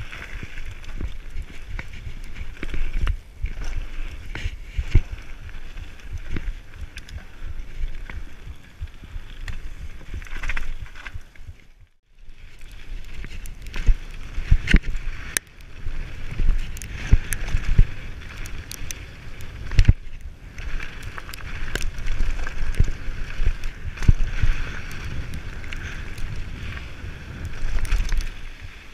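Mountain bike descending fast over a loose gravel and rock trail: tyres crunching over stones, frame and components rattling and knocking over bumps, with wind buffeting the microphone. The sound drops out for a moment near the middle.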